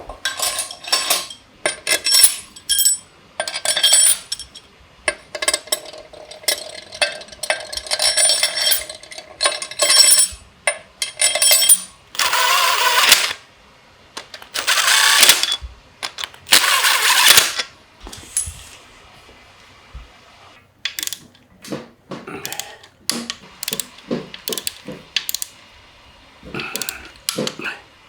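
Metal hand tools and engine parts clicking and clinking in irregular clusters during work on a Porsche 997 Carrera S engine. About halfway through come three hisses, each about a second long.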